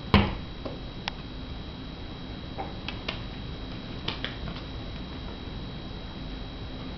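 A cat playing with a laser dot: a loud thump as it lands a pounce right at the start, then scattered light taps of its paws on the floor.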